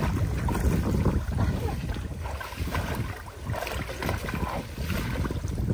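Water sloshing and splashing as people wade through a pond dragging a fishing net, with a low, uneven wind rumble on the microphone.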